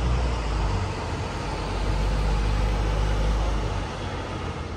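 Steady low rumble of a vehicle in motion, with an even hiss over it, dropping in level near the end.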